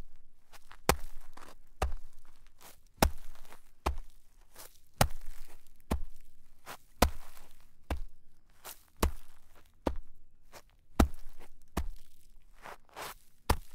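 Footsteps walking through shallow snow at a steady pace, about one step a second, each a sharp crunch that trails off.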